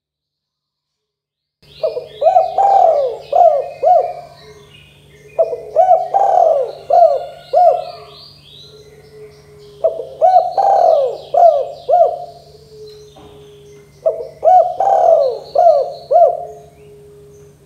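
Spotted dove (tekukur) cooing: four repeated phrases of several short, arched coo notes, beginning about one and a half seconds in. Small birds chirp faintly in the background.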